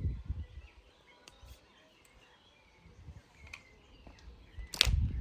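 Quiet outdoor ambience with faint bird chirps, then a single sharp knock near the end.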